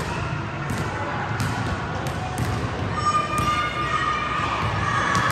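Basketballs bouncing on a court: sharp thuds at uneven intervals, some close together.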